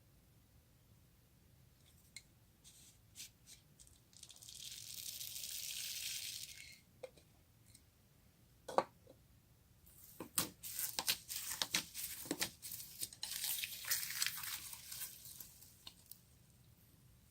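Slime being worked by hand, with scattered clicks, then a steady hiss lasting about two seconds, and later a long run of sticky crackling and popping.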